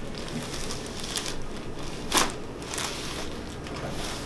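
Joint cracking during a chiropractic adjustment: one sharp crack about two seconds in, with a few softer crackles and rustling around it.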